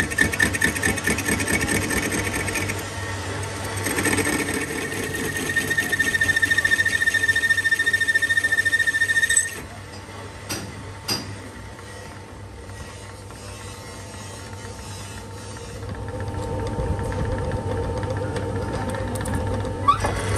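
Metal lathe turning the bore of a chaff-cutter rotor hub with a single-point cutting tool: the machine hums steadily under a high, steady whine from the cut. About halfway the whine cuts off suddenly and the sound drops, with a couple of clicks. Near the end a lower-pitched cutting tone comes back in.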